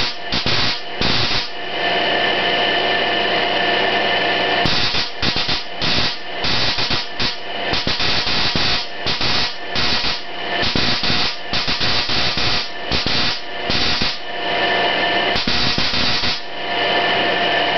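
Spark-gap transmitter firing: a harsh, loud buzzing rasp with a steady pitch running through it. It is keyed on and off in short and long spells, with one long steady spell early on and many quick breaks later.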